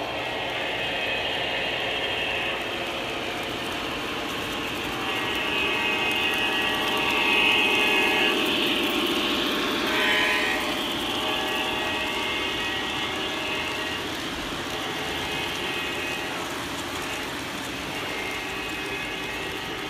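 O scale model trains running on three-rail track, the locomotive's onboard sound system playing a steady diesel engine drone. The sound swells as the Amtrak F40PH model passes close, about ten seconds in, then fades.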